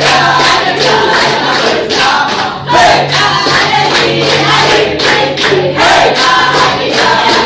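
A mixed group of young men and women singing together in chorus, clapping along.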